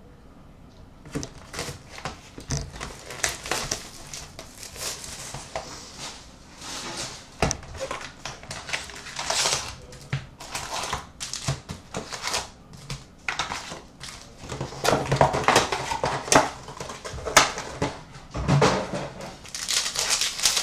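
A 2015-16 Upper Deck Series 2 hockey card box being torn open and its wrapped packs pulled out and handled: a continuous run of crinkling, tearing and rustling of cardboard and pack wrappers, starting about a second in and getting louder in the second half.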